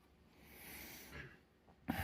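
Two breaths close to the microphone: a softer rush of air about half a second in, then a sudden, louder one near the end.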